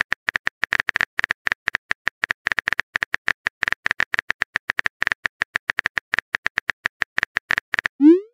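Simulated phone-keyboard typing sound: rapid, irregular short clicks, about ten a second, as a text message is typed letter by letter.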